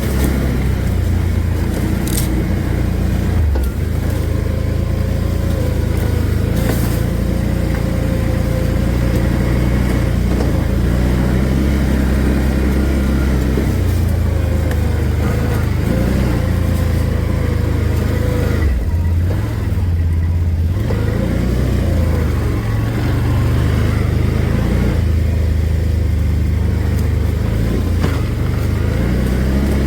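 Small motor vehicle engine running while being ridden, its revs rising and falling, with a steady low rumble; the engine eases off briefly about two-thirds of the way through.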